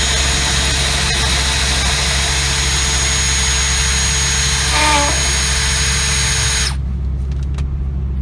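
Dremel rotary tool running at high speed, grinding away the dash opening to make room for a double-DIN stereo: a steady high whine over hiss that cuts off abruptly near the end.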